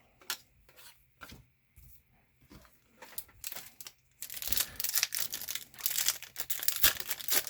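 Light handling taps and rustles, then about four seconds in a dense run of crinkling and tearing: a trading-card pack's foil wrapper being torn open.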